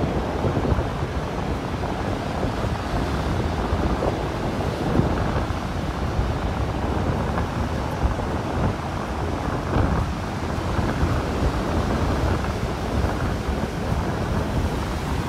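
Wind buffeting the microphone in a steady low rumble, over the wash of rough surf breaking on a shingle beach.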